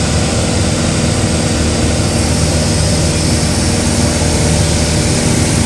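Light aircraft's piston engine and propeller droning steadily in cruise flight, heard from inside the cabin as a constant hum under a wash of air and engine noise.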